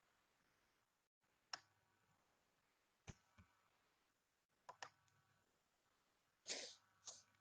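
Near silence broken by faint single clicks of a computer keyboard and mouse every second or two, with a quicker run of clicks near the end.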